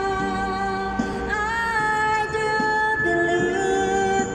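Background song with a voice singing long, held notes over the accompaniment.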